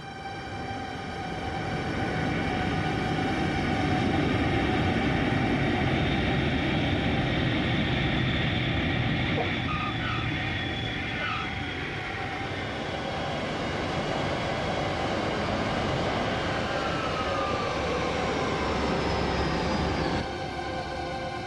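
Aircraft engines running: a steady rumble with a high whine, which falls in pitch near the end and then cuts off suddenly.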